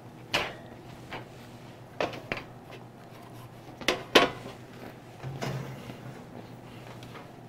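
Metal loaf tins knocking and clattering against a baking tray and each other as freshly baked loaves are turned out of them onto a wire cooling rack. There are several sharp knocks, including two quick pairs around two and four seconds in.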